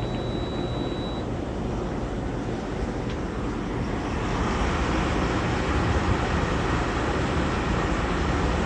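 Danby 40-pint dehumidifier running on a test, its fan giving a steady whoosh that grows slightly louder about four seconds in. A short high tone sounds at the start.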